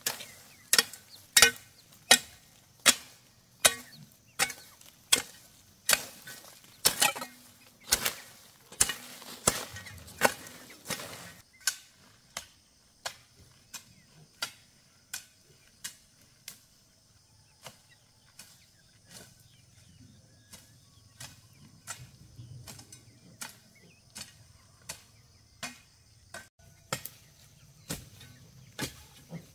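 Repeated chopping strikes of a hand-swung blade or hoe, about three every two seconds, loud for the first ten seconds or so, then fainter and more spread out.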